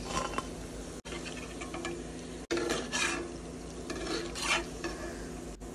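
Chicken pakoras sizzling in hot mustard oil as a perforated steel skimmer scoops them out, with a few scrapes and taps of the skimmer against the kadai and steel plate.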